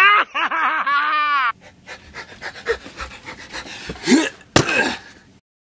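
A man's excited wordless shouting and squealing laughter, high-pitched and gliding, breaking into quick panting bursts and a held yell. It stops suddenly about a second and a half in. Faint scattered clicks follow, with a sharp knock near the end.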